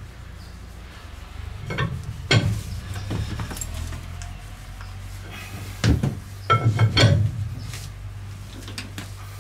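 Metal clanks and knocks as a long bar levers the crankshaft of a compound steam engine round by hand (barring the engine over), loudest in a cluster about six to seven seconds in, over a steady low hum.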